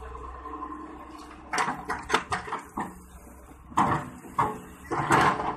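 Excavator bucket working against a steel tractor trolley, loading it with earth: a quick run of metal clanks and knocks about a second and a half in, then heavier thuds and a rush of soil near the end. A low engine hum runs underneath.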